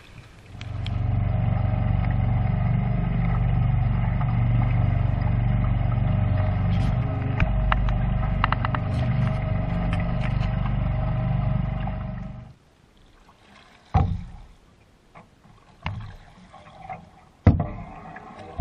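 Small outboard motor driving a canoe, a steady drone that cuts off suddenly about twelve seconds in. After it, a few sharp knocks of a wooden paddle against the canoe.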